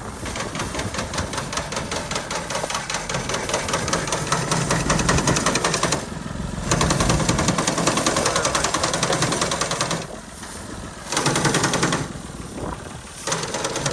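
A 65 hp Al-Ghazi tractor's diesel engine running under load, driving a wheat reaper with a rapid, even mechanical clatter. The sound drops back briefly three times and picks up again each time.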